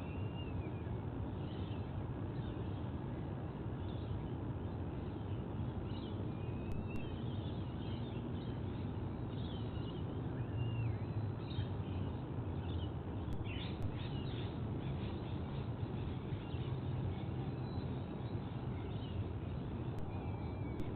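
Birds chirping and calling, many short chirps scattered throughout, with a brief cluster of sharper calls about thirteen seconds in, over a steady low rumble of background noise.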